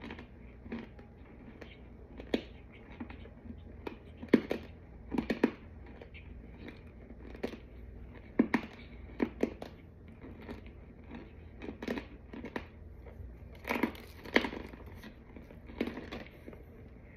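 A person biting and crunch-chewing chalky white powder-dusted chunks, with irregular dry crunches and a few louder clusters of bites.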